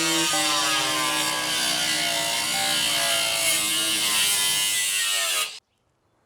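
Welding arc buzzing and crackling on sheet metal over background music, cutting off abruptly about five and a half seconds in.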